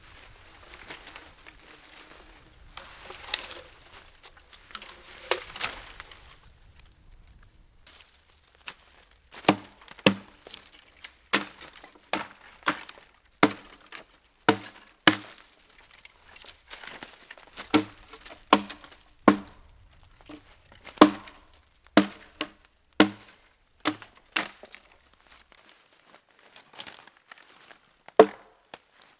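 Axe chopping into wood: a run of sharp, hollow strikes, roughly one or two a second, each ringing briefly. It comes after several seconds of rustling and crunching, and near the end a few lighter knocks follow.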